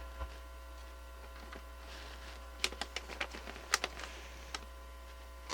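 Steady mains hum through the amplifier from the AKAI AP-206 turntable's ungrounded phono connection, with a few sharp clicks in the middle as the ground wire is fitted to the ground screw. The hum drops away right at the end as the ground connection is made.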